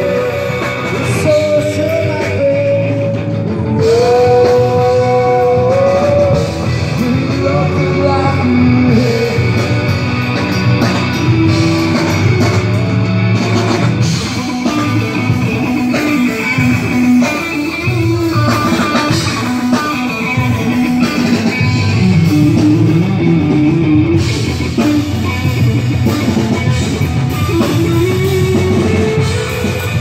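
Reggae band playing live through a PA system: electric guitar, bass and drum kit, with a voice singing over them.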